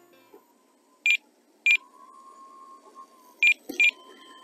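Short, high electronic beeps: one about a second in and another just over half a second later, then a quicker pair around three and a half seconds in, over a faint steady whine.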